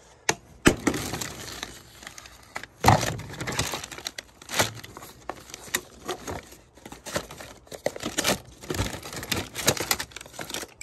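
Hands rummaging through a plastic tub of computer scrap: hard drives, circuit boards and cables knocking against each other and the tub, with plastic bags crinkling. Irregular clacks and rustles, the sharpest knocks at about one, three and five seconds in.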